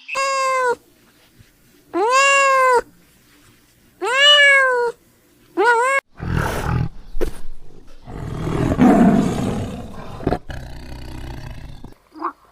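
Animal calls: four drawn-out pitched calls, each rising and then falling in pitch, the last one short. They are followed by a rough, noisy call of several seconds that stops abruptly.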